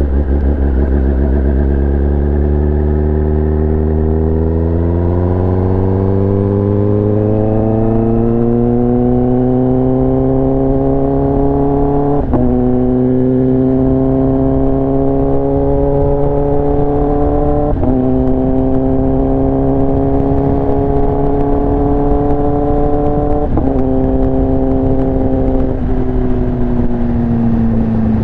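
Kawasaki ZX-10R inline-four with an SC-Project exhaust accelerating under way, its pitch climbing steadily for about twelve seconds. It then upshifts three times, the pitch dropping sharply at each shift and climbing again, before easing off near the end.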